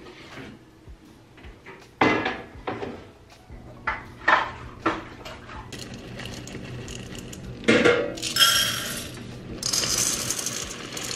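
A red saucepan and a kitchen utensil clinking and knocking on a gas stove's cast grate, a string of separate knocks followed by two longer scraping stretches near the end.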